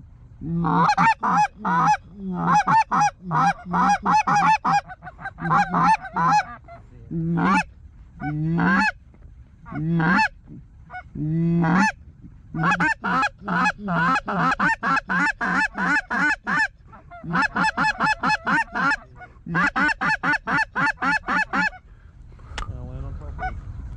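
Goose call blown in quick runs of honks and clucks, several notes a second, with single longer honks between the runs. A rustle near the end.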